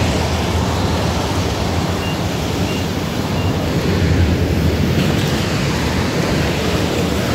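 Steady rushing noise, wind on the phone's microphone, over a low rumble from heavy scrapyard machinery such as a grapple excavator, with three faint short beeps about two to three seconds in.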